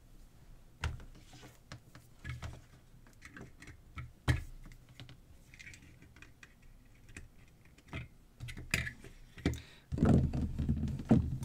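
Scattered small clicks and knocks of alligator-clip test leads being clipped onto a flashlight's circuit wires by hand, with a busier patch of handling knocks and rustle near the end.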